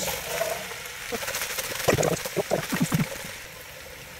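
Diced vegetables sizzling in a hot enamelled Dutch oven as more are tipped in. About two seconds in comes a run of knocks and scrapes as they are stirred with a wooden spatula, then a steady sizzle.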